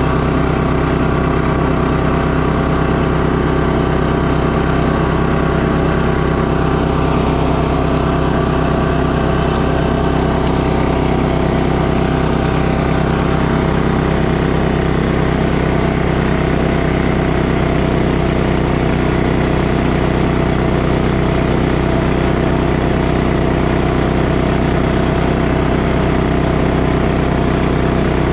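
Walk-behind snowblower's gas engine running steadily at constant speed while its auger clears snow and throws it out of the chute.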